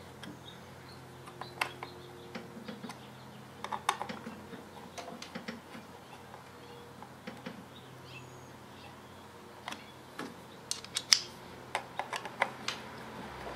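Scattered small clicks and taps as fingers fit wiring connectors and small screws on a circuit board inside a Tesla drive unit's inverter housing, with a quick run of sharper clicks near the end. A faint steady hum sits underneath.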